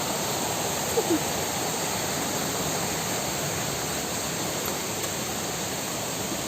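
Steady rush of water from a nearby waterfall and its stream. A brief short squeak-like sound comes about a second in.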